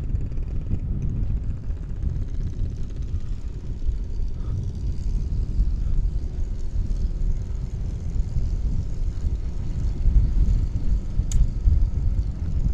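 Steady low rumble of a Yamaha NMAX scooter cruising on an asphalt road, its engine and tyres mixed with wind buffeting the camera microphone. One sharp click about eleven seconds in.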